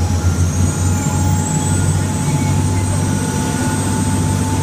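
River boat's engines running steadily, heard on board: a constant low drone with a faint steady high whine above it.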